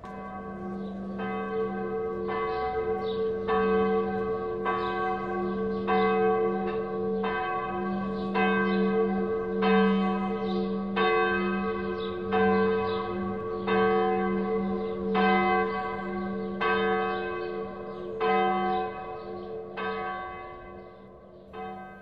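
A bell struck over and over, about once a second, each stroke ringing on over a steady low hum; it fades out near the end.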